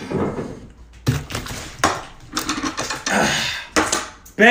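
A large container of mayonnaise being dumped out in a thick pour: a run of irregular wet splats and clunks, roughly one every half second to a second.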